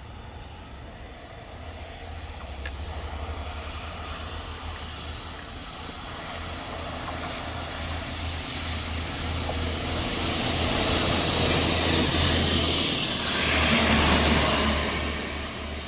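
Diesel rail head treatment train approaching and passing close by: engine and wheel noise building steadily for about ten seconds, loudest with a rush of hiss as it goes by near the end, then starting to fall away.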